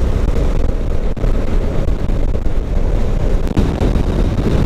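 Motorcycle running at highway speed, heard through a rider-mounted action camera as a steady low rumble of wind buffeting and engine and road noise.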